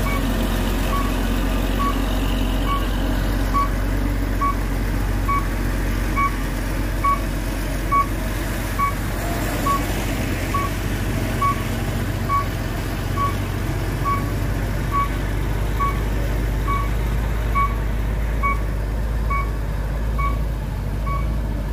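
Heavy diesel trucks labouring uphill, a container tractor-trailer towing a loaded Mitsubishi Fuso truck, as a low steady engine drone. Over it an electronic warning beeper sounds about once a second, the loudest thing heard.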